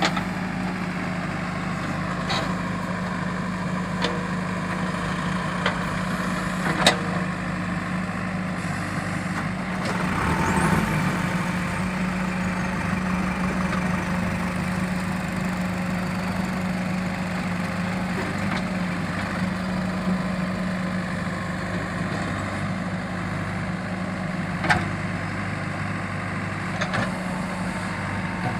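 JCB backhoe loader's diesel engine running steadily, briefly rising under load about ten seconds in, with a few sharp knocks now and then.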